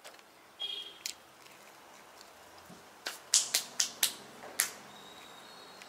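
Palms brushed and clapped against each other about six times in quick succession, a run of sharp slaps, knocking sugary pastry crumbs off the hands. A short softer sound and a click come just before them.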